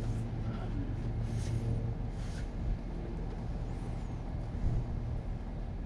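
A steady low engine hum, with a few faint clicks and light rustles over it.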